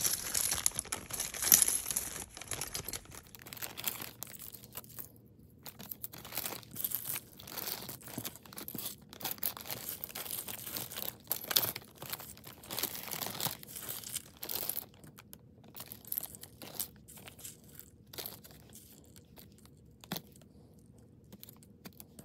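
Clear plastic bag crinkling as small costume-jewelry pieces are gathered off a mat and put into it, with light clicks of the metal bits. The crinkling is densest for the first few seconds, then comes in short, scattered rustles and clicks.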